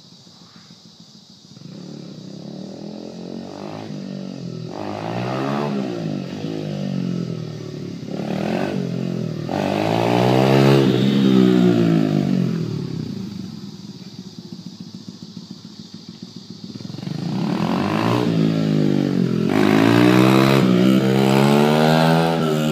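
Honda XR100R dirt bike's single-cylinder four-stroke engine revving up through the gears in repeated rising sweeps as it rides past. It is loudest about ten seconds in and again near the end, and fades between the two passes.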